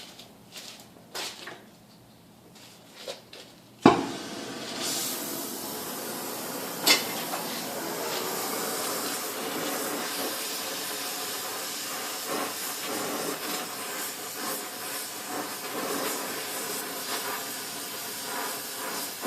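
A few light taps, then a gas torch lighting with a sharp pop about four seconds in and burning with a steady hiss while steel strap is heated for bending. A short sharp click comes about three seconds after it lights.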